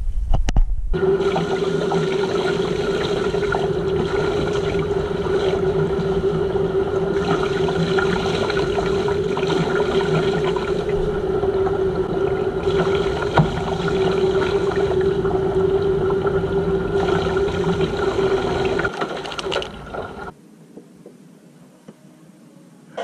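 Water running steadily into a bathtub from the tap, a loud rushing with a steady ringing tone in it, starting about a second in and stopping a few seconds before the end.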